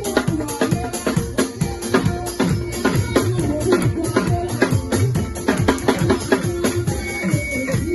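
Lively music with a steady drum beat and shaken percussion, over pitched instrument lines.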